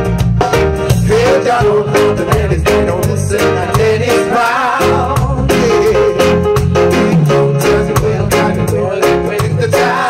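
Live reggae band: several singers singing together over electric guitar and drums, with a steady beat and a strong bass underneath.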